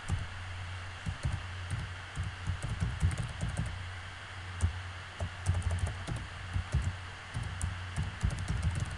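Keys tapped on a computer keyboard in short irregular clusters of clicks, over a low steady hum.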